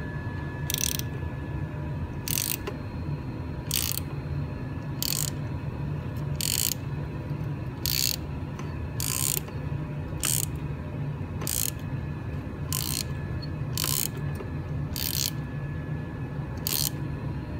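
A 3/8-inch socket ratchet clicking in short bursts on each back-swing, about every second and a half, around thirteen times. It is driving a thread-repair tap into a stripped spark plug hole in quarter turns, cutting new threads for a Heli-Coil insert. A steady low hum runs underneath.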